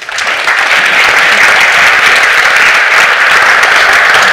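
Audience applauding, building to full strength within the first half second and then holding steady.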